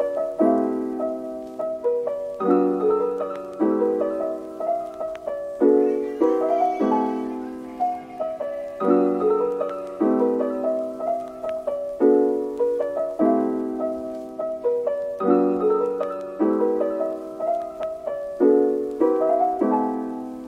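Soft background piano music: gentle chords struck one after another, each fading away before the next.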